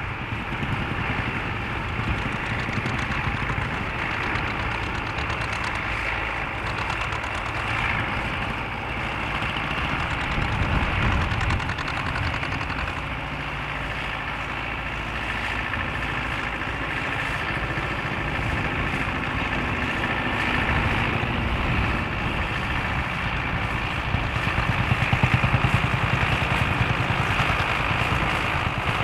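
Engines of several vintage tractors running steadily as they pull ploughs across a field, growing a little louder near the end as one tractor draws closer.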